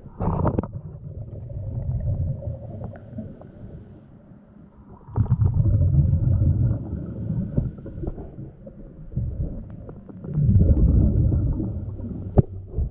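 Muffled underwater rumbling and sloshing picked up by a submerged camera's microphone as it moves through the water. It swells in three surges, with a sharp click near the end.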